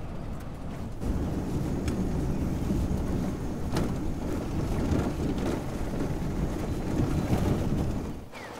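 A car driving slowly along a rough road: a steady low rumble of engine and tyres with some wind noise, louder from about a second in and falling away near the end.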